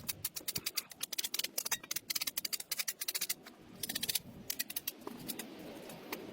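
Overgrown grass and roots tearing loose as they are pulled up from the soil: rapid crackling clicks that come in several bursts.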